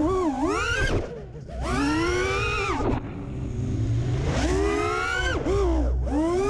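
A 5-inch FPV racing quadcopter's four 2207.5 1900KV brushless motors and propellers whining. The pitch rises and falls with the throttle and drops away sharply three times as the throttle is cut for rolls and dives, over a low rumble of wind on the onboard camera.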